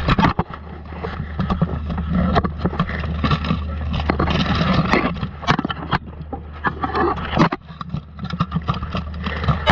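Armoured melee heard close on a fighter's chest: steel plate and weapons clattering, repeated sharp knocks of blows on shields and armour, and metal scraping on metal, over a steady low rumble.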